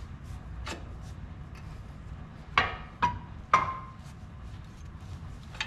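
Metal clanks as a Clayton adjustable track bar is fitted to the front axle mount of a Jeep JK. There is a light knock about a second in, then three sharper clanks in quick succession past the middle, the last two ringing briefly, over a low steady hum.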